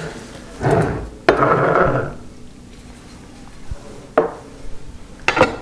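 Knife slicing through smoked beef short ribs and knocking against the cutting board: three sharp knocks with scraping and handling sounds between them.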